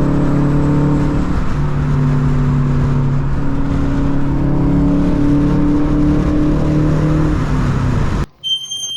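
2011 Subaru WRX's turbocharged flat-four engine running under way, its pitch shifting in steps a couple of times. It cuts off abruptly near the end, followed by a brief high chirping sound.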